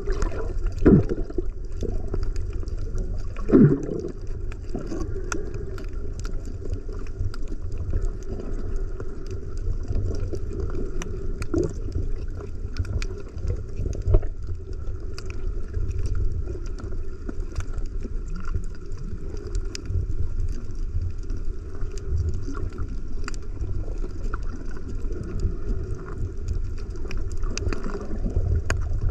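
Underwater sound picked up by a camera held below the surface over a coral reef: a steady low rumble and gurgle of water with many faint scattered clicks. A couple of louder knocks come in the first few seconds, and another about halfway through.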